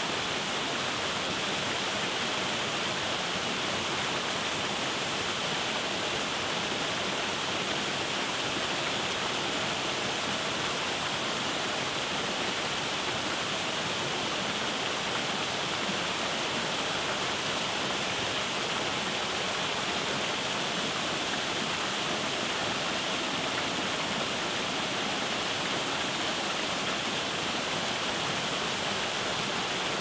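A small waterfall pouring steadily over a rock ledge into a pool: an even, unbroken rush of splashing water.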